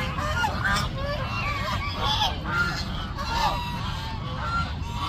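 Several waterfowl honking repeatedly in short calls, overlapping one another, over a steady low rumble.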